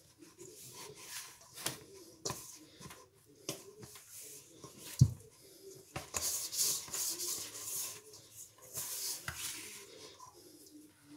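Hands kneading stiff flour-and-ghee dough in a stainless steel bowl: irregular rubbing and squishing of dough and loose flour against the metal, with one sharp knock about five seconds in.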